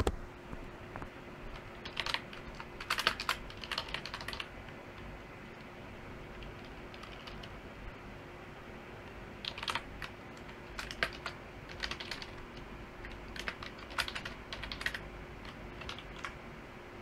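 Typing on a computer keyboard: two runs of keystrokes, the first about two seconds in and the second from about halfway through nearly to the end, with a pause between. A faint steady hum sits underneath.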